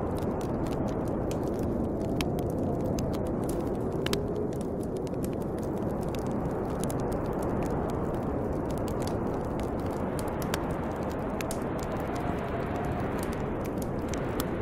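Steady snowstorm wind with faint wavering whistles, over a bonfire crackling with scattered sharp pops.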